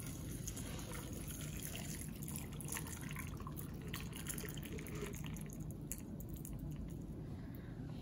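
Shaken cocktail being strained from a stainless steel shaking tin over ice into a tall Collins glass: a faint steady trickle of pouring liquid with light clicks and drips.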